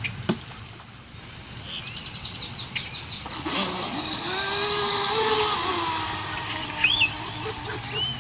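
Offshore Infinity RC speedboat's electric motor and three-blade propeller on a 4S LiPo pulling away across the water: a whine with water hiss that rises about two seconds in, swells, and slowly fades as the boat runs off. A sharp click comes right at the start.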